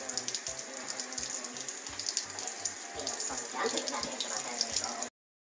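Kitchen faucet running in a thin, steady stream into the sink. The sound cuts off abruptly about five seconds in.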